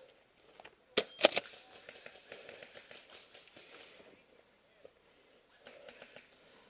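Three sharp cracks in quick succession about a second in, followed by lighter scattered ticks and rustling.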